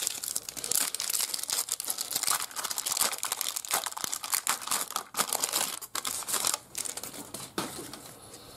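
Foil trading-card pack wrapper crinkling and tearing as it is opened by hand, a dense run of crackles that thins out and fades near the end.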